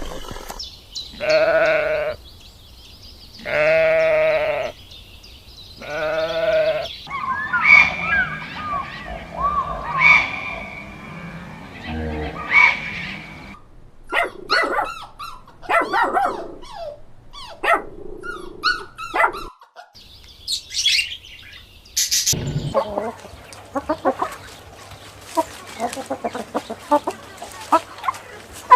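Goat bleating: three long, wavering bleats in the first seven seconds. After them comes a long run of shorter chirping and clicking animal calls.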